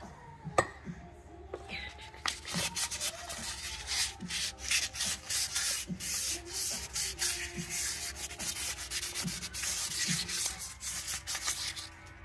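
Light-grade sandpaper rubbed by hand over the steel stub axle (wheel spindle), quick uneven back-and-forth strokes, cleaning up the rough, WD-40-wetted metal where the wheel bearing came off. A sharp click about half a second in comes before the sanding starts.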